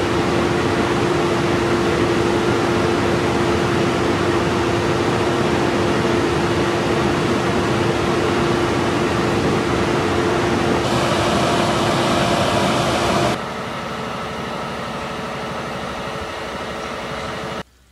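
Steady mechanical hum of running machinery with one held tone. It drops in level about 13 seconds in and cuts off just before the end.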